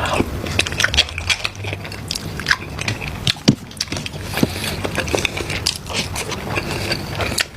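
Close-miked eating sounds: biting and chewing, with many irregular crackling clicks.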